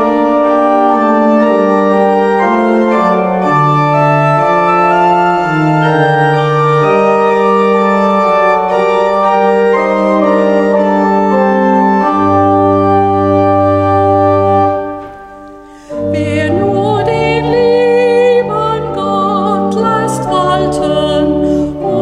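Church pipe organ playing slow sustained chords, with a deep bass note under the last chord, dying away about fifteen seconds in. About a second later the organ starts again and a woman's singing voice with vibrato comes in over it.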